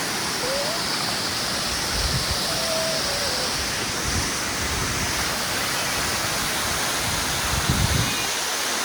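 Waterfall rushing with a steady roar of falling water. A few low thumps come through, the strongest near the end.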